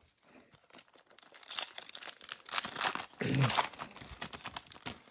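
Foil trading-card pack wrapper being torn open and crinkled by hand: a run of crackly rustling and tearing, loudest in the middle. A brief low voice sound about three seconds in.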